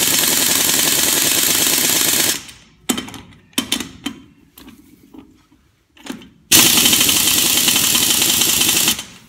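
Cheap Harbor Freight Central Pneumatic air impact wrench hammering on a truck's lug nut in two long bursts, with a few short blips between them. It is too weak to break the nut loose, even on 150 PSI air.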